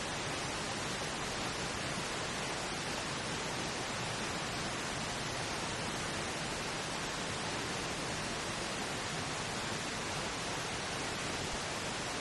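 Steady pink noise: an even, unchanging hiss that fills the whole range.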